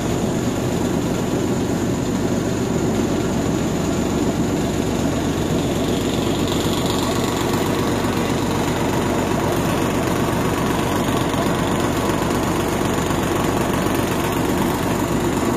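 Rice combine harvester's engine and machinery running steadily.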